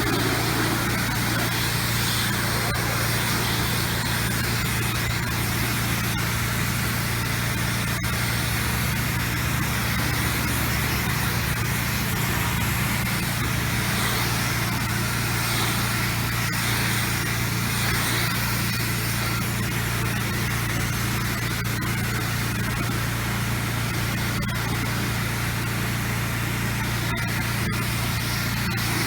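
Pressure washer engine running steadily with a constant low hum, under the hiss of water spraying from a wide fan rinse tip onto house siding at high volume and low pressure.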